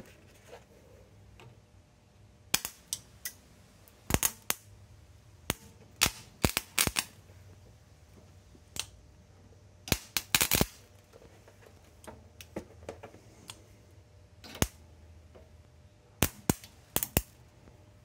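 Short, sharp electrical snaps of a 7018 welding rod sparking against steel, fed from a single 12-volt car battery through jumper cables. They come irregularly in small clusters. The rod sparks but never holds a steady arc: 12 volts does not give enough current to weld.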